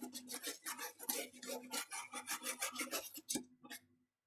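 Quick, repeated scratchy scrubbing strokes, several a second, as a small watch part is cleaned. They stop a little before the end.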